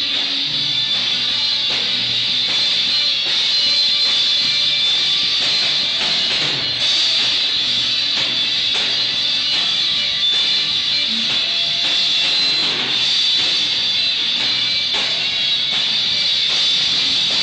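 A live band playing at a sound check: strummed guitar over drums, loud and continuous.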